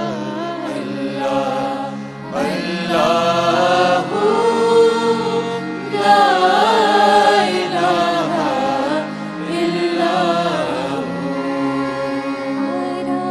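A nasheed sung by a vocal group, a lead voice carrying the melody over a steady low drone. The sound grows fuller about two seconds in.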